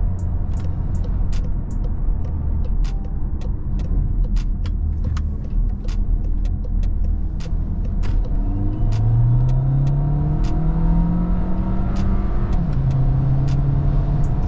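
The 2017 Volkswagen Tiguan's 1.4 TSI turbocharged four-cylinder petrol engine, heard from inside the car while driving. It runs as a low, steady rumble at first, then rises in pitch from about eight seconds in as the car accelerates. Near the end the pitch drops once as the gearbox shifts up.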